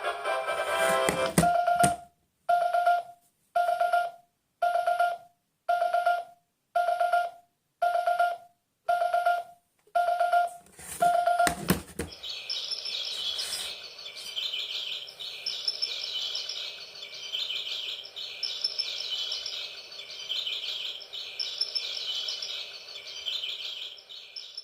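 Electronic alarm clock sounding its alarm: first a steady run of beeps, a little faster than one a second, for about ten seconds. Then, after a click, it switches to a continuous high electronic birdsong chirping.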